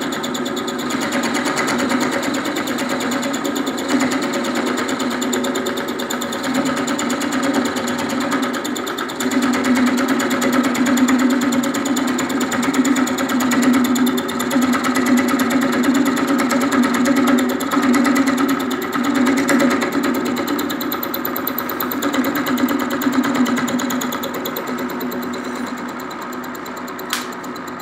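A machine tool running steadily while milling a groove in metal, a low hum with a fast, even rattle from the cut.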